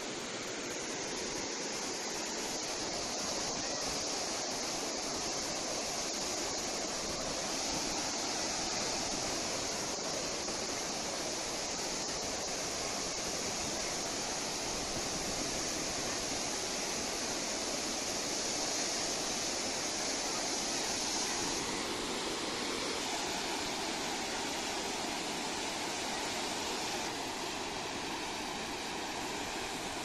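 Dhuandhar waterfall on the Narmada River: heavy water plunging over rock, rushing steadily.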